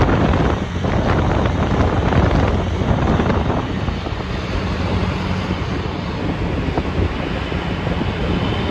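Moving bus heard from inside the cabin: a steady low engine hum under road and wind noise.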